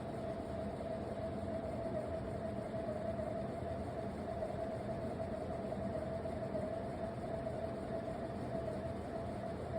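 Big Ass Fans Haiku ceiling fan running, a steady high whine over a constant rush of air.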